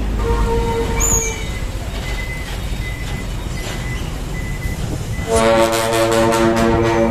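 Dump truck's multi-trumpet air horn: a short toot about half a second in, then about five seconds in a long, loud blast sounding several notes at once as a chord, over a low rumble.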